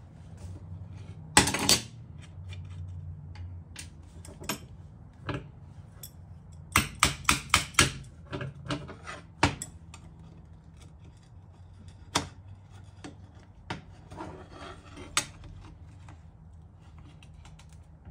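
Steel adjustable wrenches clinking and scraping against a steel workbench and the rusted bolt hardware of an old brush axe as the bolt is being undone. A loud scrape comes about a second and a half in, a quick run of five sharp clicks near the middle, then scattered single knocks.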